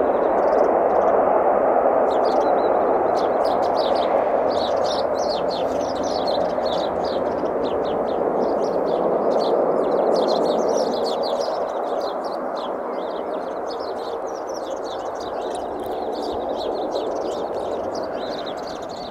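ATR 72's twin Pratt & Whitney PW127 turboprops running as the aircraft rolls along the runway after landing: a steady engine-and-propeller noise that slowly fades over the last third. Small birds chirp and twitter throughout from about two seconds in.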